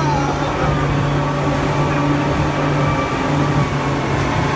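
Boat engine running at a steady speed, with a constant low pitch throughout.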